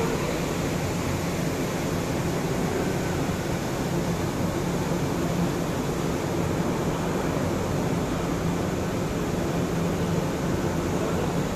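Tea-factory machinery running: a steady rushing drone of air with a low hum underneath.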